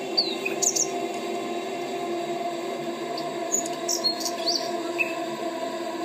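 Birds chirping, with short high calls and quick falling whistles that come in bunches near the start and in the middle, over a steady low hum.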